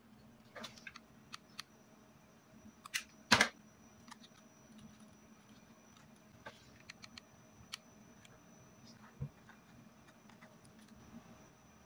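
Small handling noises of paper crafting: card, rolled banknotes and a satin ribbon bow being handled and set on a tabletop, giving scattered light taps and rustles. The sharpest tap comes about three and a half seconds in.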